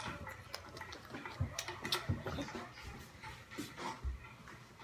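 Faint scattered taps, scrapes and a few soft thumps of objects being handled and moved about, with no steady sound beneath.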